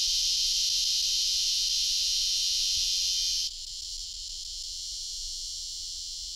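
Steady high-pitched chirring of an insect chorus, which drops to a lower level about three and a half seconds in.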